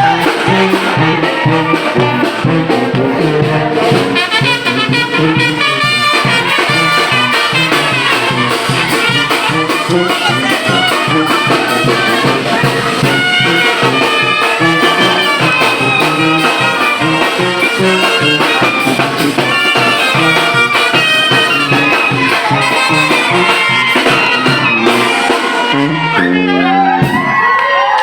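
Mexican banda brass band playing: trumpets and trombones over a steady bass-drum beat. Near the end the tune closes with a sliding flourish.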